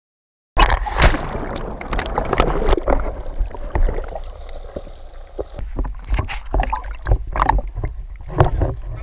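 Sea water splashing, sloshing and gurgling around a camera at the surface and just under it, with many irregular sharp splashes and knocks. It starts suddenly about half a second in.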